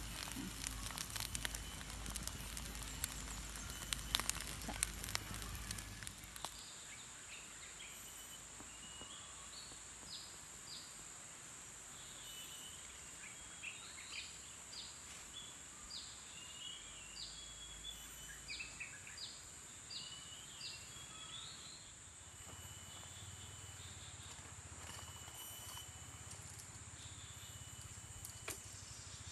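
Campfire crackling under foil-wrapped fish for the first six seconds or so. It then gives way to forest ambience: scattered short bird chirps over a steady high insect drone.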